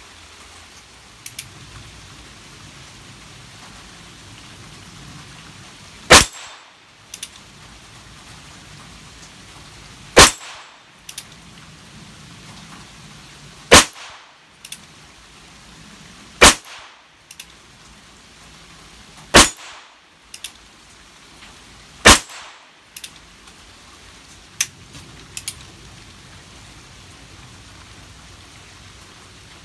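Ruger Wrangler .22 Long Rifle single-action revolver fired six times, one sharp crack every three to four seconds. A fainter click follows about a second after each shot.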